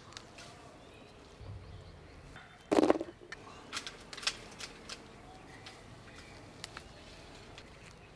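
Hand-picking jujube fruit from a leafy jujube bush: leaves and twigs rustle and fruit stems snap off with small sharp clicks, with one loud, brief rustle of the branches about three seconds in.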